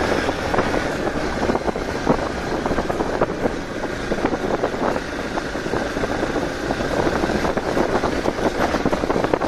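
Hero XPulse 200 4V's single-cylinder engine running steadily at low road speed, with frequent short knocks and clatter as the bike rides over a rough, stony dirt track.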